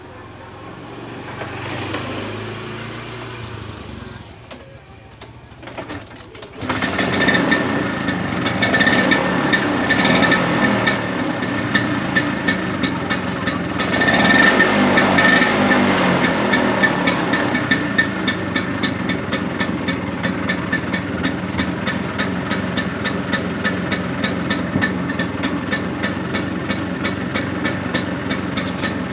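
Vintage Vespa Super's two-stroke single-cylinder engine kick-started; it catches about seven seconds in with a sudden loud, rapid putter. It is revved up twice, then settles into a steady fast-pulsing idle.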